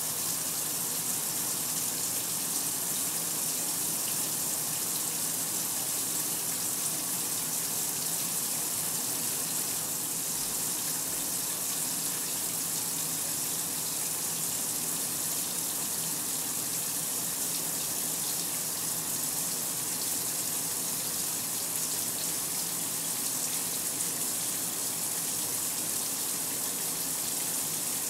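Kenmore 800 Series top-load washer with water rushing into the tub, a steady even gush that sounds like the machine filling.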